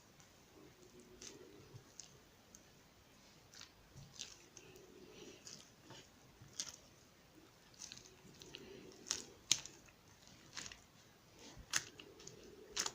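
Quiet handling of a two-layer slime: sticky squishing with irregular sharp clicks and pops. The clicks come more often and louder in the second half.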